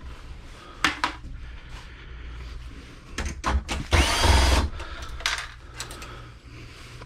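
Power drill driving screws out of an old computer's metal case: one short burst with a rising whine as the motor spins up about four seconds in, among several short clicks and knocks of screws and metal parts being handled.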